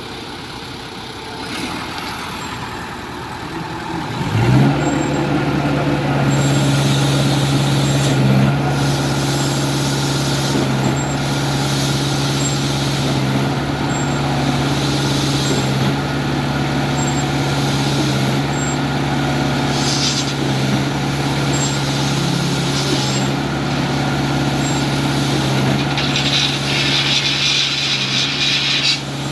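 Diesel engine of a concrete pump revving up about four seconds in and then running steadily at high speed under load. A regular swish comes about every two seconds as the pump cycles, and a louder hiss comes near the end.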